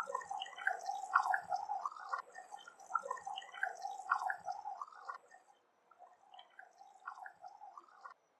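Thick kurma curry bubbling as it simmers in a pan, with a dense, irregular run of wet pops and gurgles. The bubbling thins about five and a half seconds in and stops abruptly near the end.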